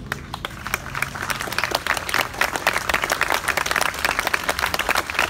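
Crowd applauding: a few scattered claps at first that quickly thicken into steady, full applause within about two seconds.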